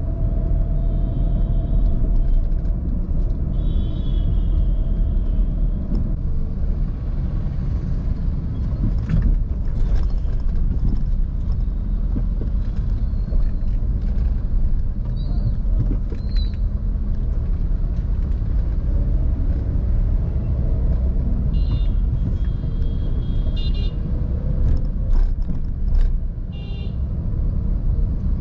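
A car driving through city traffic: a steady low rumble of engine and road noise, with car horns honking several times, a short honk near the start, another a few seconds in, and a run of honks about two-thirds of the way through.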